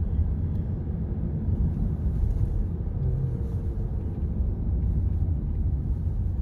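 Steady low rumble with no clear events in it.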